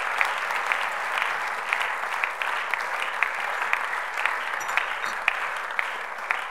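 Audience applauding, a dense patter of hand claps with some sharper single claps standing out; the applause slowly dies down toward the end.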